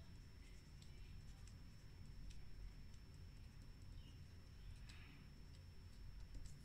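Fine-liner pen writing on paper: faint scratches and small ticks of the nib, scattered and irregular, over a low steady hum.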